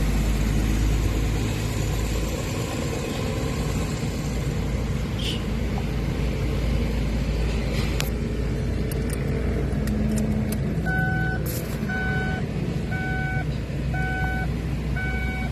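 Steady rumble of motor vehicles, with about the last third taken by a short electronic beep repeating about once a second.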